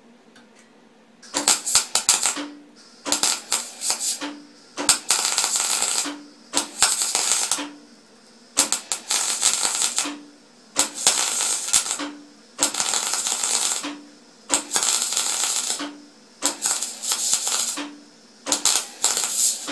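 MIG welding arc crackling in about ten short bursts, each a second or so with brief pauses between, as the welder stitches a bead on thin sheet steel; a short low hum follows each burst. The machine is on its B4 setting, hot enough to blow through the thin sheet.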